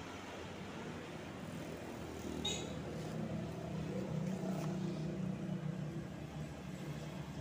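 A motor vehicle's engine hum that grows louder over the first few seconds and then holds steady, with a brief high chirp about two and a half seconds in.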